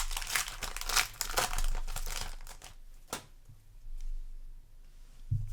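Foil wrapper of a Yu-Gi-Oh! trading card booster pack being torn open and crinkled, busy crackling for about three seconds that then dies down.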